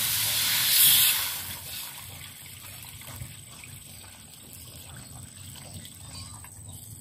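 Water poured from a plastic jug into a hot wok of fried chicken pieces: a loud sizzling hiss as the water hits the hot pan, peaking about a second in and dying away over the next second. A steadier, quieter pouring trickle into the liquid follows.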